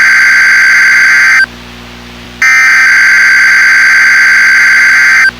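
Weather radio receiver's electronic alert tone sounding in long, loud beeps as it is triggered by a NOAA Weather Radio Required Weekly Test. One beep ends about a second and a half in, and the next starts a second later, lasts about three seconds and cuts off abruptly.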